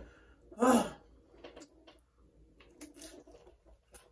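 A woman's short, loud vocal sound about half a second in, then quieter scattered clicks and crackles of chewing as she eats crunchy nacho chips.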